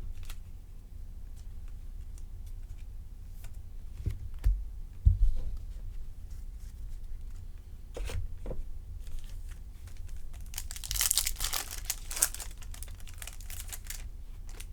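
Trading cards being handled with a few soft knocks and clicks, then the crinkly tearing of a foil card-pack wrapper being ripped open for a couple of seconds near the end.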